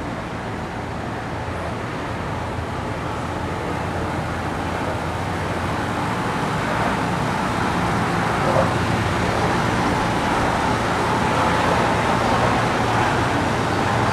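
Steady road traffic noise from cars crossing a bridge, growing gradually louder.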